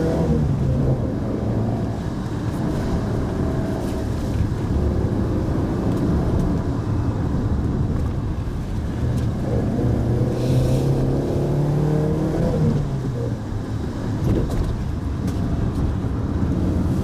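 A Mitsubishi Pajero Mini's 660 cc four-cylinder engine pulls the car along over a steady rumble of road noise. Its note climbs and falls back twice: just after the start, and again from about nine to thirteen seconds, as the driver works the throttle.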